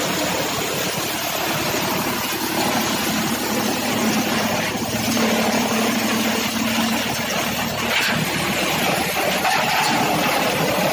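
Tractor engine running steadily, driving a PTO chaff cutter-shredder, a continuous even machine drone with a faint steady hum.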